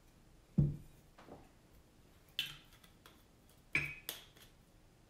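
Glass bottles and glassware being handled and knocked on a countertop: a dull knock about half a second in, then a few sharper clinks with a short ring, two of them close together near the end.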